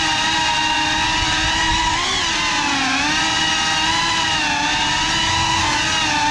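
Cinelog 35 cinewhoop drone's brushless motors and ducted propellers whining on a 6S battery, the pitch wavering up and down with the throttle and dipping about two to three seconds in.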